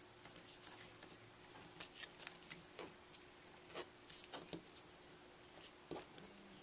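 Faint, scattered rustles and small ticks of fingers handling linen thread and a cardstock heart with a brass button as the thread is tied into a bow, over a faint steady hum.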